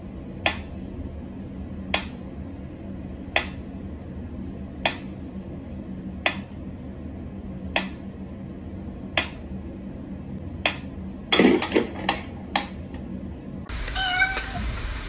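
Mechanical pendulum metronome ticking slowly, about one tick every second and a half. About eleven seconds in there is a short cluster of louder noises, and near the end comes a short meow.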